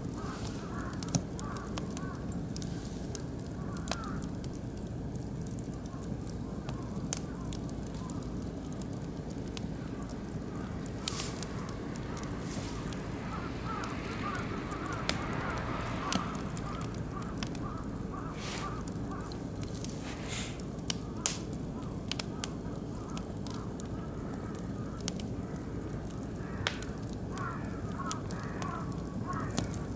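Oak and beech wood fire burning in a barbecue grill: a steady low rush of flames with scattered sharp pops and crackles.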